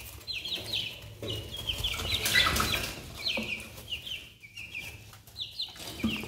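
Half-grown chickens peeping in runs of quick, high chirps. From about one to three seconds in there is a scuffle of flapping wings and scattered wood shavings as a bird dodges a reaching hand.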